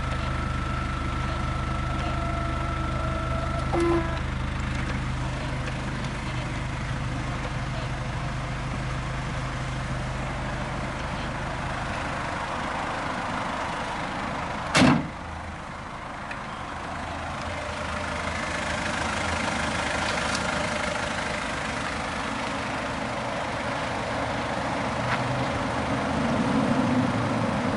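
Mazda Bongo Friendee's 2.5-litre turbo diesel idling steadily. A van door slams shut about halfway through, the loudest sound.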